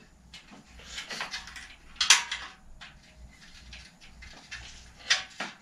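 Irregular handling noises from work on a bicycle's rear wheel fittings in a repair stand: short scrapes and clicks of tools and metal parts, the loudest about two seconds in.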